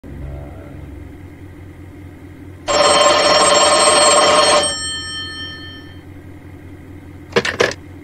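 Old telephone's mechanical bell ringing: one rattling ring of about two seconds, starting nearly three seconds in, whose tone lingers and fades over the next second. Two short sharp taps follow near the end.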